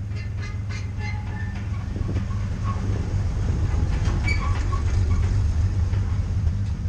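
An old International KB-3 truck driving past close by, its engine and tyres rumbling louder as it nears and easing off near the end, with light metallic clinks from the scrap-metal load piled in its bed.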